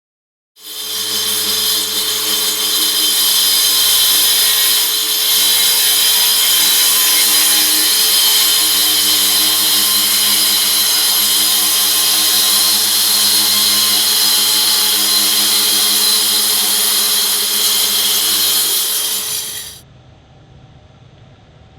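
Metabo AS 18 L PC cordless vacuum cleaner switched on, running steadily with a motor hum, a high whine and rushing air. It is switched off near the end and winds down.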